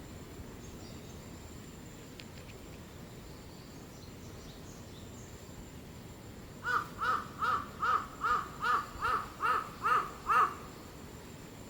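A bird calling in a quick run of about ten short, evenly spaced calls, roughly two and a half a second, starting a little past the middle and stopping abruptly.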